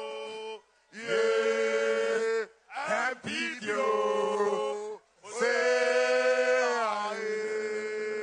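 A man's voice chanting in long, sung phrases, held on steady notes, with short breaks between them.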